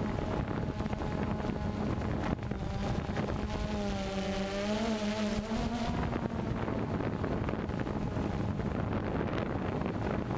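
Multirotor drone's motors and propellers humming steadily, heard from the drone's own camera, with the pitch wavering up and down about four seconds in as the motors adjust speed. Wind rushes over the microphone throughout.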